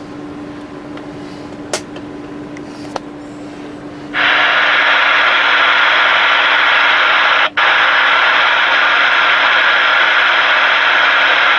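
Stryker SR-955HPC CB radio's receiver: a faint hum and a couple of small clicks, then about four seconds in a loud, steady hiss of static breaks in suddenly and runs on, cut by a brief dropout partway through.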